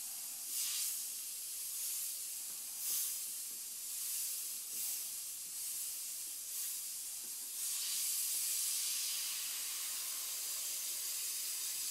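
Iwata Eclipse airbrush hissing steadily on about 80 PSI of air. It swells louder briefly a few times, then more strongly for a couple of seconds around eight seconds in, as it sprays mostly air with a little opaque white paint to build a starburst highlight.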